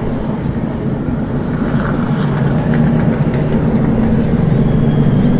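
NASCAR stock cars' V8 engines running at speed, a loud steady drone that slowly grows louder.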